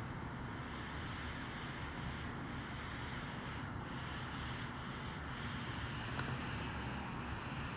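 Small butane torch lighter burning with a steady hiss while heating a heat-shrink solder seal wire connector, whose low-temperature solder is melting.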